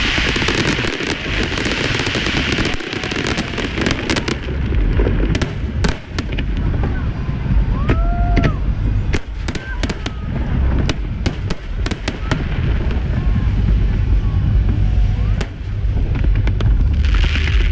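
Aerial fireworks display: a dense run of loud booms from bursting shells, with sharp crackles and a few short whistles.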